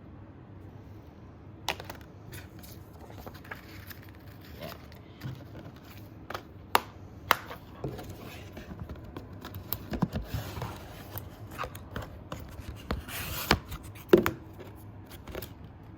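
Plastic Blu-ray case and discs being handled: scattered sharp clicks and scrapes with short rustles, a little busier about ten seconds in and again near the end.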